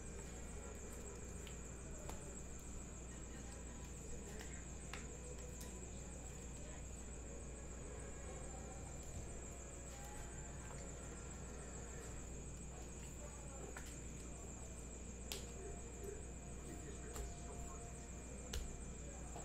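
Faint handling of trading cards and a pack wrapper, with a few soft clicks and rustles, over a steady electrical hum and a thin high-pitched tone.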